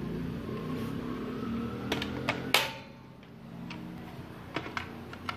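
Sharp plastic clicks and taps as a cylindrical lithium-ion cell is handled and seated in a battery charger's slot, the loudest about two and a half seconds in, over a steady low hum that fades about halfway through.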